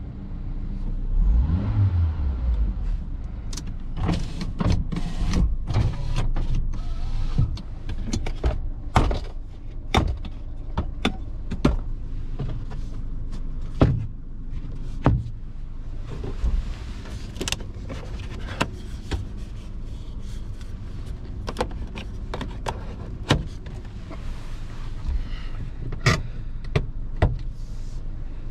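Honda Capa's cabin fittings clicking and knocking as they are handled, the sun visor and the heater-control knobs among them, over the steady idle of its 1.5-litre engine.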